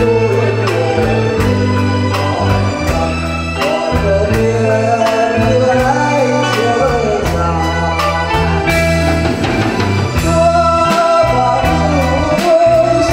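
A man singing a slow melody into a microphone over instrumental band backing with sustained bass notes and a steady drum beat.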